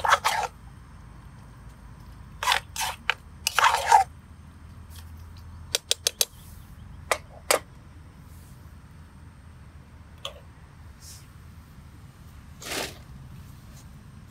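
Sharp metallic clinks and scrapes of a steel canteen cup and spoon being handled and set back onto the pot supports of a gas camping stove, bunched in the first eight seconds with a few softer ones later. Under them runs the low steady rumble of the lit burner.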